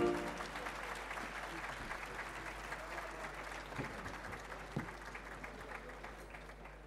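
Audience applauding at the end of a band performance, the clapping slowly fading away.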